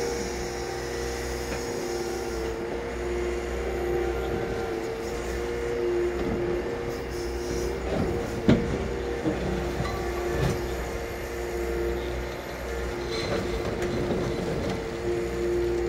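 Liebherr crawler excavator working, its engine running with a steady low rumble and a two-note whine. Some clatter in the middle and a single sharp clank about eight and a half seconds in.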